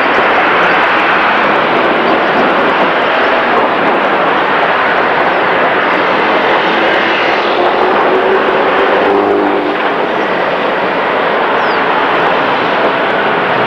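Steady noise of busy city street traffic passing close by, with an engine note standing out for a couple of seconds about eight seconds in.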